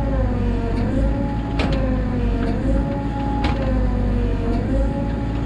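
Mini excavator's diesel engine and hydraulics straining under heavy load as the boom pushes against a tree, with a whining tone that sags and recovers in pitch several times. Two sharp cracks, about a second and a half and three and a half seconds in.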